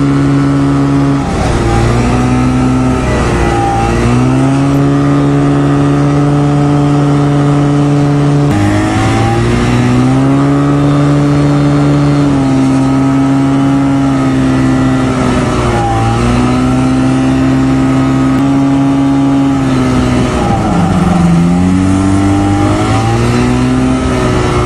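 Small plane's engine and propeller running at high power, heard from inside the cockpit. Its pitch dips and rises again several times as the throttle is worked.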